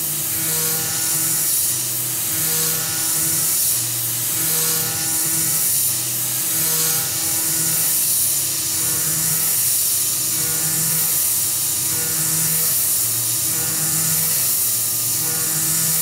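Tormach 440 CNC mill cutting aluminum with a 3/16-inch carbide end mill on an adaptive toolpath, the cutting tone shifting in a repeating cycle about once a second as the tool loops in and out of the cut. A steady hiss of coolant spray runs under it.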